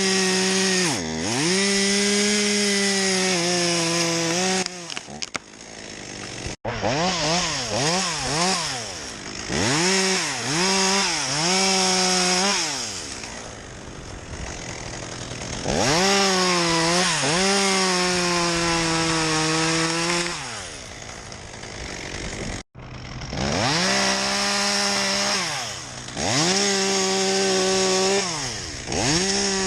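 Chainsaw running at full throttle for stretches of a few seconds, dropping back to idle and revving up again over and over, with a run of quick throttle blips in between. The sound breaks off abruptly twice.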